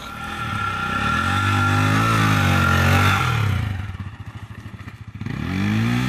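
Dirt bike engine running under throttle, the revs rising and falling. It eases off about three and a half seconds in and picks up again near the end.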